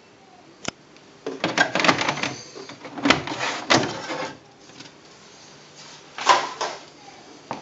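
Sharp QL-100 electronic typewriter clattering in dense runs of rapid mechanical strikes, a long run from about a second in and a shorter one near the end, with a few single clicks between.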